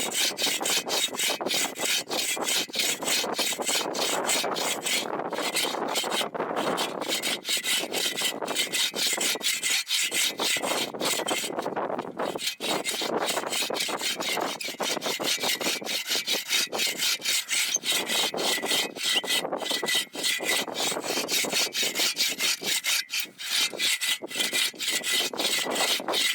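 Hand saw cutting through wood in quick, even back-and-forth strokes, with a couple of short pauses partway through.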